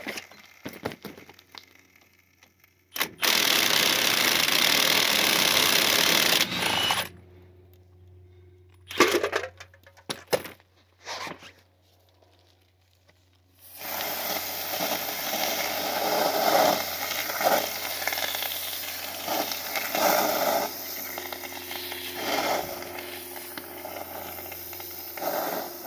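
Work on a truck wheel's torch-heated, seized lug nuts. A loud hiss lasts about four seconds, then come a few metallic knocks. Over the last twelve seconds there is a long, crackling hiss of water from a hose spraying onto the hot wheel and boiling off as steam.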